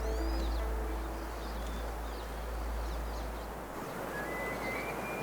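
Outdoor ambience: wind rushing on the microphone with a steady low rumble, short bird chirps throughout and a faint high whistling note near the end. The held notes of a plucked-string music cue fade out in the first second.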